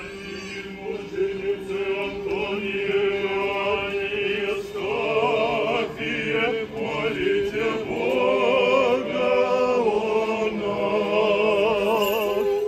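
Orthodox clergy chanting a liturgical hymn together, several voices carrying a wavering melody over a steady held note.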